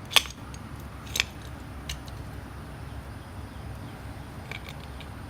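A few sharp metallic clicks and scrapes from a screwdriver levering between rear disc brake pads to push the caliper pistons back. The loudest click comes just after the start and another about a second in, with fainter ticks near the end, over a low steady hum.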